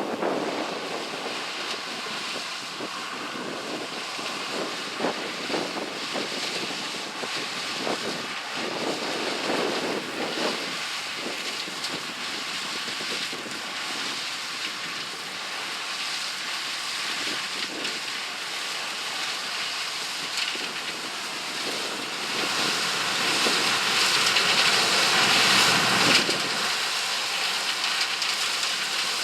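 1983 Gleaner L3 combine harvesting corn: its Allis-Chalmers 670T turbocharged six-cylinder diesel and threshing machinery running steadily as a rushing mechanical noise. It grows louder about three-quarters of the way through, then eases.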